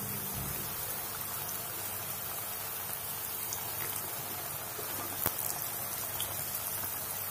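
Irani onion samosas deep-frying in a pan of hot oil: a steady sizzle with scattered small crackles, and one sharper pop about five seconds in.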